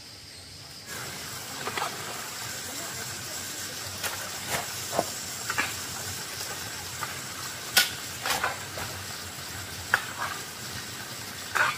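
Irregular sharp knocks and scrapes, roughly one every second, over a steady hiss that starts about a second in.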